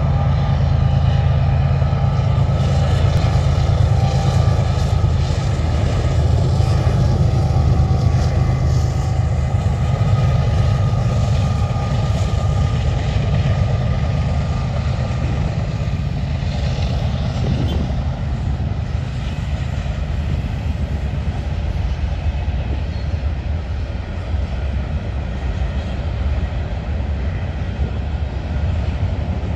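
Freight train passing, led by its diesel locomotives: a loud, steady low engine drone for roughly the first half, easing into the rumble of tank cars and covered hopper cars rolling by.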